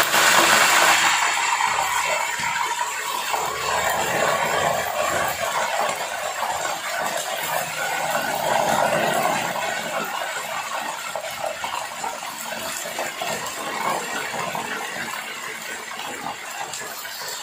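Whole mackerel tuna frying in a pan of hot oil, sizzling steadily; the sizzle is loudest at first and slowly dies down.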